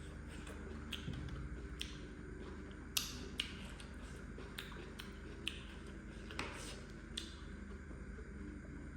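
Close-up eating sounds of a person eating noodles: irregular sharp mouth smacks and clicks, the loudest about three seconds in, over a steady low hum.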